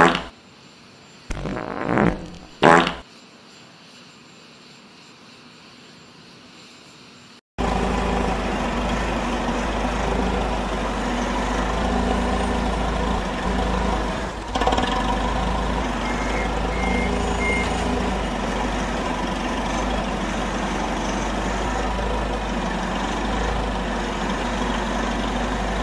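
A fart sound effect in two short blasts about two seconds in. From about seven and a half seconds a sudden cut brings in a steady, loud mechanical drone with a deep rumble.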